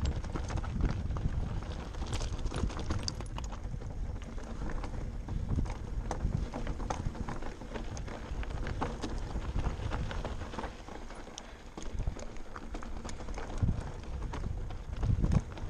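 Mountain bike rolling down loose, rocky singletrack: tyres crunching over stones, with an irregular stream of clicks, knocks and rattles from the bike over a steady low rumble.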